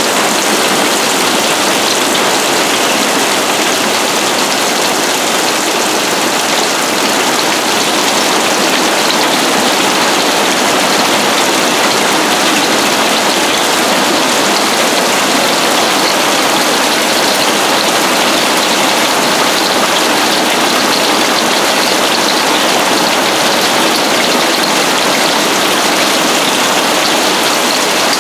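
Hail storm pelting down hard, a dense and steady din of countless small impacts.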